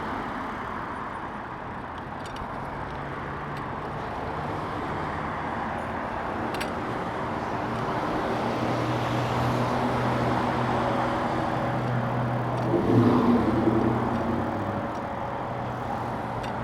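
Road traffic heard while riding a bicycle: a steady rush of wind and traffic noise, with a motor vehicle's engine running alongside and passing, loudest about thirteen seconds in.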